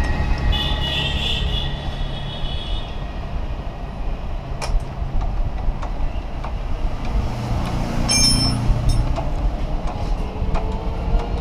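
Steady low mechanical rumble with a few light metallic clinks from hand tools at a motorcycle's rear brake pedal and caliper. One clink, about eight seconds in, rings briefly.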